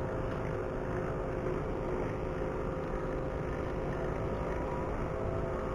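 A steady low rumble with a faint, even engine hum, like a distant motor running.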